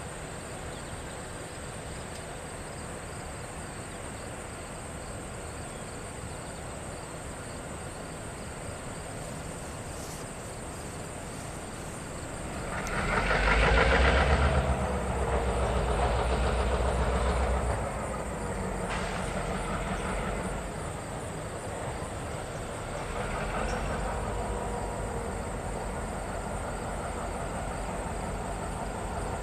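A diesel freight locomotive comes up and runs by. Its engine sound swells about twelve seconds in and is loudest for a few seconds, then settles to a steadier, lower level as it keeps moving.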